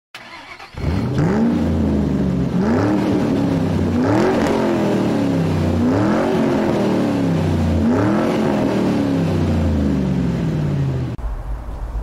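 Car engine revved again and again, about five times, each rev rising quickly in pitch and then falling back slowly. It cuts off suddenly near the end.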